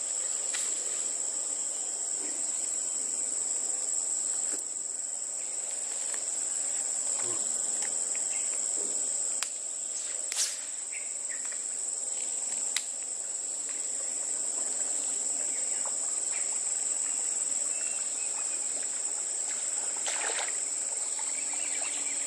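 Steady high-pitched insect chorus, one continuous shrill tone, with a few brief sharp clicks, the loudest about halfway through.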